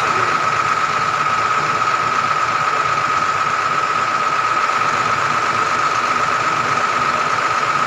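An engine idling steadily, with a constant high-pitched whine over it.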